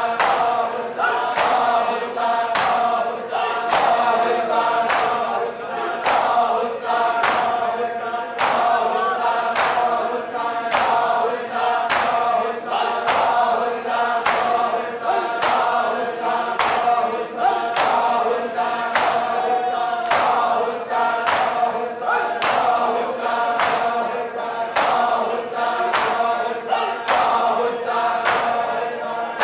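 A crowd of men chanting a nauha (mourning lament) in unison, with the steady beat of open hands slapping bare chests in time (matam).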